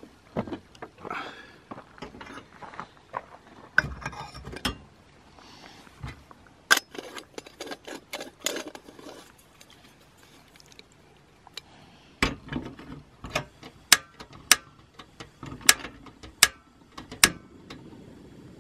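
Sharp metal clinks and clicks of a Bialetti stovetop moka pot being handled, screwed together and set down on the grate of a portable gas stove. The clicks come in scattered bunches, thickest in the second half.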